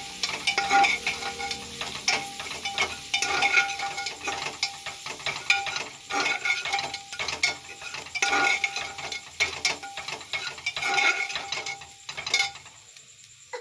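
A spatula stirring and scraping fried onions and spices around the bottom of an aluminium pressure cooker: quick, repeated scrapes and clinks against the metal pot, with a brief ringing tone now and then. The stirring stops near the end.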